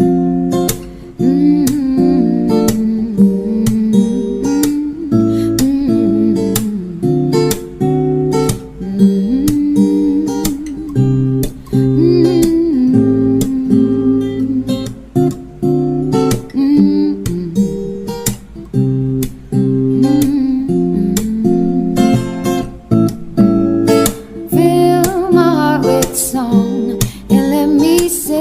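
Background music: acoustic guitar plucked and strummed, playing steadily.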